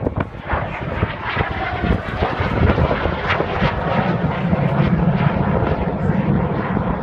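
Engine noise of a Hawker jet flying past overhead. A whine falls in pitch about a second in, and the low rumble swells louder from about four seconds in as the aircraft comes over.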